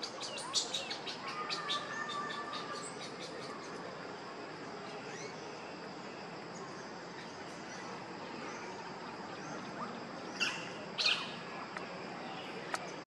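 Forest birds chirping: a quick run of short high chirps at the start and two sharper chirps about ten and a half seconds in, over a steady high-pitched hum of the forest background.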